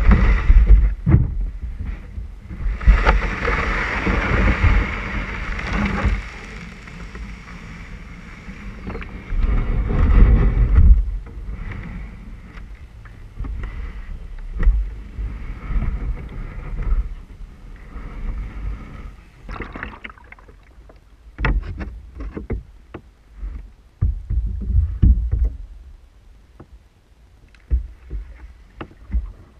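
Kayak paddling: water splashing and sloshing around the paddle and hull, with irregular gusts of wind rumbling on the microphone and scattered knocks. The wind and splashing are heaviest in the first half and turn quieter and more intermittent in the second half.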